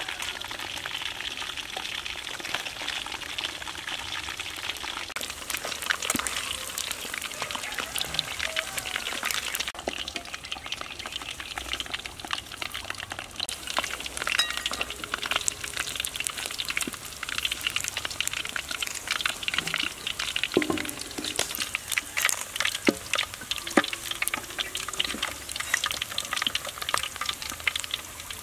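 Frog pieces deep-frying in hot oil in a steel wok: a continuous crackling sizzle with many small pops, stirred now and then with a metal spatula.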